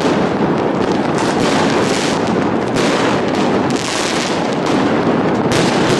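Fireworks going off in a dense, unbroken barrage of bangs and crackling, with aerial shells bursting close overhead.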